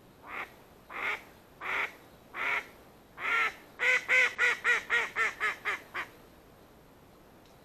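Live decoy hen mallard quacking on the water: about five spaced quacks, then a quick run of about eight shorter quacks that trails off, the hen's calling series that draws drakes in.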